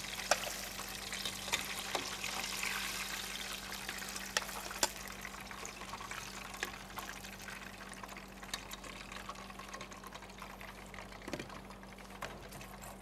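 Hot frying oil sizzling as fried banana pieces are lifted out with a metal skimmer, slowly dying down, with scattered sharp clinks of the utensil against the pot and plate.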